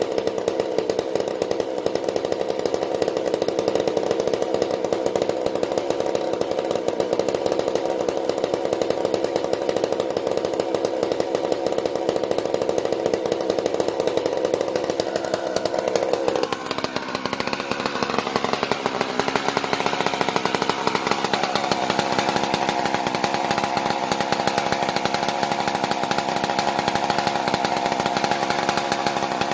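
McCulloch CP125 single-cylinder two-stroke chainsaw engine idling steadily on its own, with no bar or chain fitted. It holds speed now that its clogged carburettor idle circuit has been cleaned. About two-thirds of the way through, the note dips briefly and then settles at a higher pitch.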